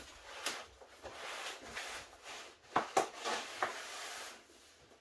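Cardboard packaging of a boxed figure being handled and opened: rustling and sliding of cardboard, with two sharp knocks close together about three seconds in.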